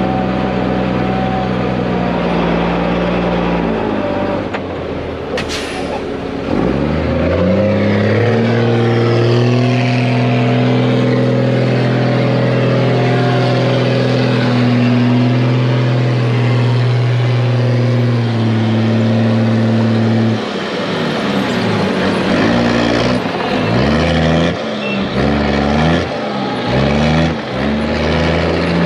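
Dump truck's diesel engine speeds up and holds high and steady for about fourteen seconds while the hydraulic hoist raises the bed to tip a load of dirt, after a short sharp hiss of air about five seconds in. Near the end the engine revs rise and fall several times.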